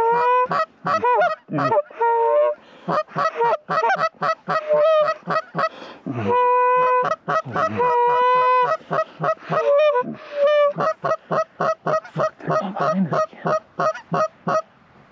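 Goose calling: a loud, rapid run of Canada goose honks and clucks, several a second, with two longer drawn-out honks about six and eight seconds in.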